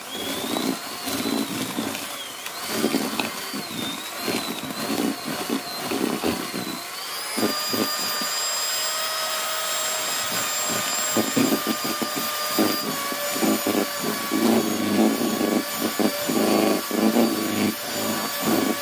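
Electric hand mixer running, its twin wire beaters churning a stiff butter, flour, sugar and egg dough in a stainless-steel bowl, creaming it until fluffy. A steady motor whine over uneven churning and knocking from the beaters in the thick dough. The whine steps up in pitch about seven seconds in.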